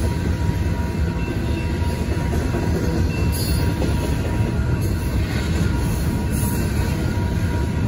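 Double-stack intermodal container well cars of a freight train rolling through a grade crossing: a steady rumble of steel wheels on rail with some clatter.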